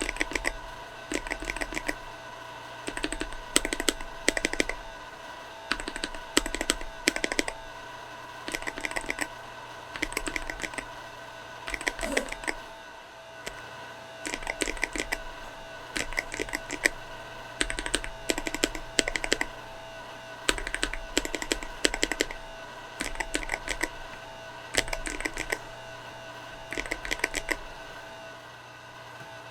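Mechanical keyboard with Akko CS Radiant Red linear switches being typed on in short bursts of rapid keystrokes with pauses between. About thirteen seconds in, after a brief pause, the test changes from the unlubed switches to lubed ones.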